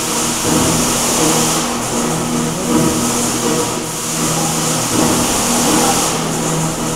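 Water jets of an indoor musical fountain falling and splashing into the pool, a steady hiss that dips briefly a few times as jets switch off, over the fountain's music of low held notes.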